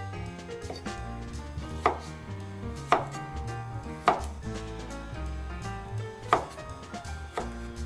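Kitchen knife cutting apricots into wedges on a wooden cutting board: a sharp knock each time the blade meets the board, about five clear ones at uneven intervals of a second or two.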